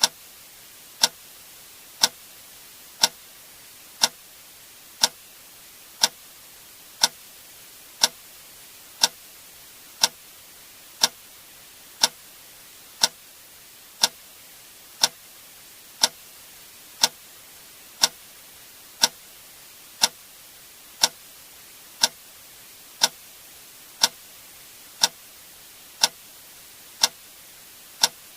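A click sound effect repeating exactly once a second, each click short and sharp, over a faint steady hiss.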